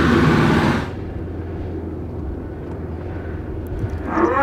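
A van's engine running with tyre noise on a dirt road. The sound is loud at first, then drops abruptly about a second in to a fainter steady engine hum as the van drives away. Near the end comes a short call that rises and falls in pitch.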